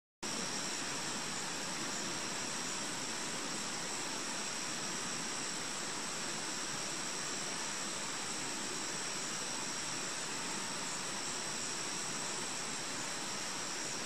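Steady, even outdoor hiss with a constant high-pitched whine over it; no bird call is heard.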